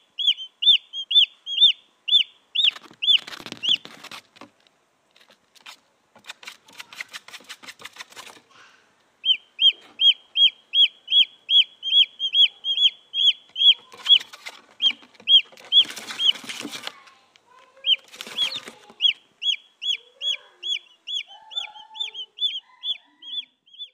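Junglefowl chicks peeping: runs of short, high cheeps, each rising and falling, about three or four a second. This is the chick call used to draw in junglefowl hens. The runs are broken by several seconds of scratchy rustling noise.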